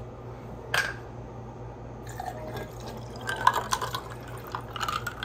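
Orange juice pouring from a plastic bottle into a tall glass, starting about two seconds in and loudest about halfway through. A single sharp click comes just before the first second.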